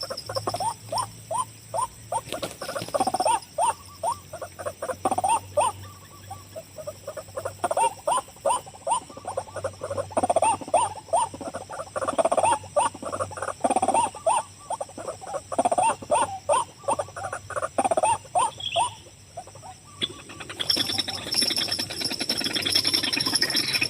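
White-breasted waterhen calling: long runs of harsh, croaking notes repeated a few times a second, the typical ruak-ruak call used to lure the bird. The calling pauses briefly near the end, then gives way to a harsher, higher-pitched sound.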